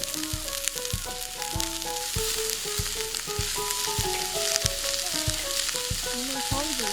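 Food frying in hot oil in a pan, a steady sizzle, under background music with a melody and a regular beat.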